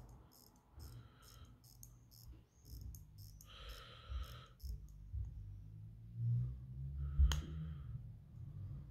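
Crown of a 1980s Lanco manual-wind watch being turned by hand: faint, fast ratchet clicks of the winding, about three to four a second, through the first five seconds, then one sharper click about seven seconds in.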